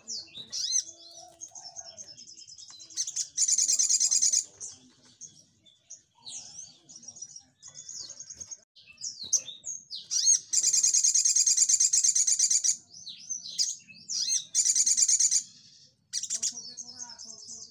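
Male sogok ontong (olive-backed sunbird) singing high chirps and twitters, broken by three bursts of fast, buzzy trilling, the 'nembak' song: one about three seconds in, a longer one of about two seconds near the middle, and a short one soon after.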